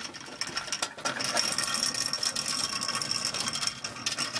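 Loaded steel yard cart rolling across asphalt on its pneumatic wheels and small swivel casters: a continuous rattling clatter of the casters and cart body over the rough pavement, a little louder from about a second in, with a thin high-pitched whine running through it.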